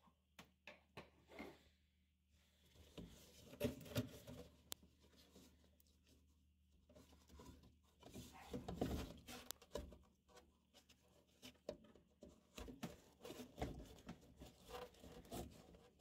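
Faint, scattered rustling and small clicks of gloved hands working at the plastic drain fitting on a furnace's inducer motor housing, in several short spells.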